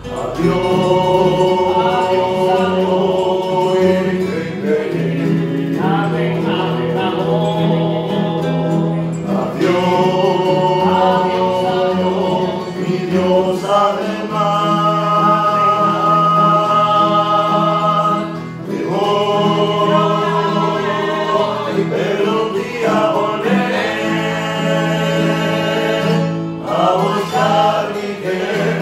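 Several men's voices singing a slow song together in harmony, to the strumming of acoustic guitars and a cuatro. The voices hold long notes in phrases of a few seconds, with short breaks between them.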